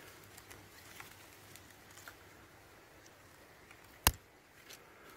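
Faint scattered ticks and crackles at irregular intervals, with one sharp, much louder click about four seconds in.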